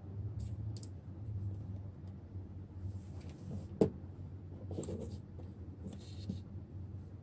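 Intermittent light scraping of a hand tool working on a phone's screen, with one sharp click a little before halfway, over a steady low hum.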